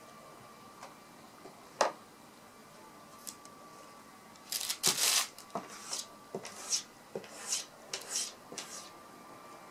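A cat's paw scraping and brushing over a wooden tabletop and the paper of an open cake box: one sharp tap a couple of seconds in, then a run of short scratchy rustles through the second half. These are the cat's burying strokes, the gesture cats make to cover food they want gone.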